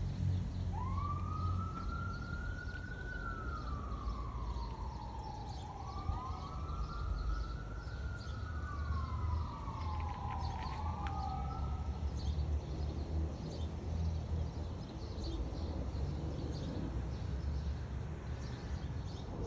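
Emergency vehicle siren wailing: slow rises and falls in pitch, each sweep a few seconds long, with a second siren overlapping for a few seconds. It stops about two-thirds of the way in and starts again just before the end, over a steady low rumble.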